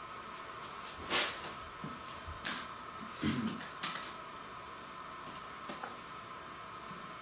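Playing cards and small game pieces handled on a tabletop during a card game: a handful of short sharp clicks and taps, scattered irregularly, over a steady hum.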